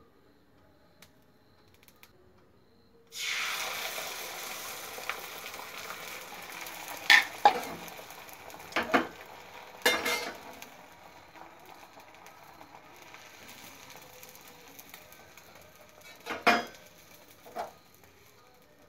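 Beaten egg sizzling on a hot oiled tawa. The sizzle starts suddenly about three seconds in and slowly dies down, with several sharp clicks and knocks against the pan.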